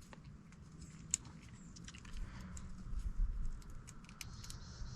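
Scattered light clicks and clinks of hand tools and parts being handled during an oil change, over a faint low rumble.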